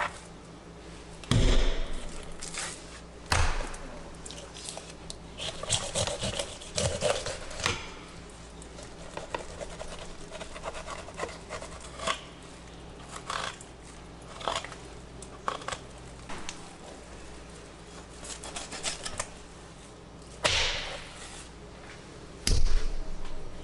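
Knife filleting a tautog on a wooden cutting board: irregular crackling and scraping strokes as the blade cuts along the backbone and over the ribs. There are two louder thumps, about a second and a half in and near the end.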